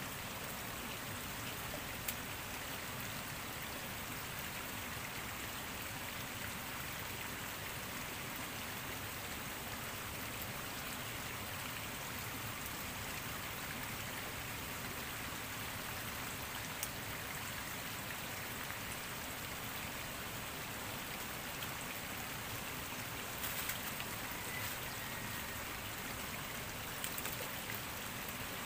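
Shallow stream water rushing steadily over its bed, with a few faint clicks now and then.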